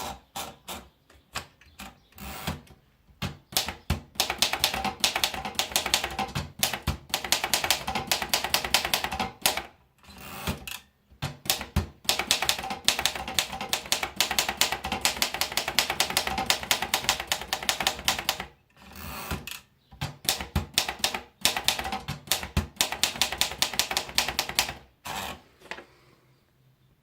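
Erika model 8 manual portable typewriter being typed on: runs of fast, crisp key strikes, broken by a few short pauses.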